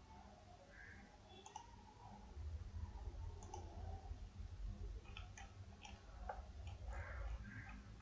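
Faint computer mouse clicks, a few scattered and then several in quick succession about five to seven seconds in, over a low steady hum.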